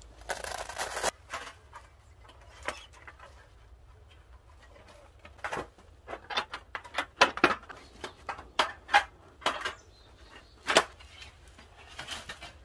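A brief rustle of a fabric stuff sack, then, from about halfway, a run of sharp metal clinks and clanks as thin metal plates and stainless-steel panels of a folding wood stove are handled and fitted together.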